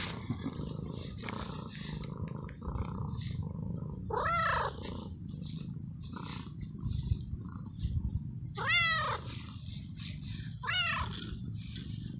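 Stray male tabby cat purring steadily while being stroked, and giving three meows that rise and fall in pitch: one about four seconds in and two more close together near the end. The carer takes the meowing for the calling of a tom looking for a mate, not hunger.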